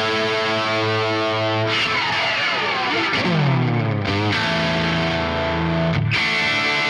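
Overdriven electric guitar: a Les Paul with 1958/59 PAF humbucking pickups played straight into a 1966 Marshall JTM45 valve amp, miked on a Celestion Vintage 30 speaker. A held chord rings out, then the notes slide down in pitch over about two seconds and settle into new held notes.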